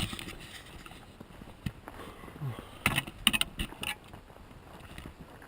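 Footsteps through wet, thawing snow: a few irregular crunches, bunched together about three to four seconds in.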